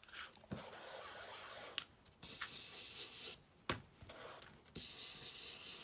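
Foam ink blending tool rubbed in short stretches on a Distress Oxide ink pad, with a few light clicks of the pad's plastic case between strokes.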